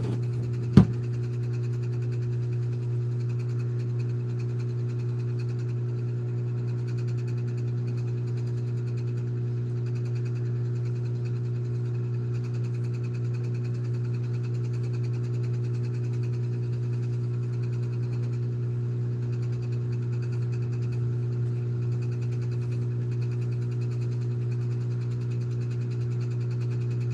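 Steady, unchanging low machine hum with a few fainter higher overtones, and a single sharp click about a second in.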